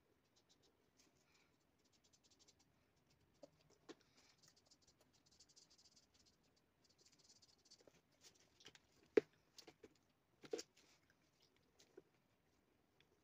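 Faint scratching of a felt-tip marker nib drawing short strokes on paper, with a few sharp clicks, the loudest about nine seconds in.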